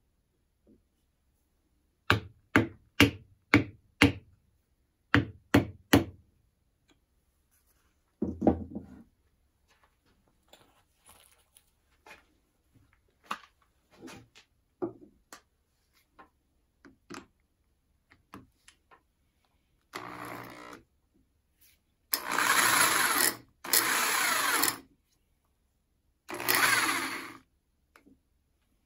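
Two quick runs of sharp knocks, then a corded electric drill run in short bursts, three loud ones of about a second each near the end.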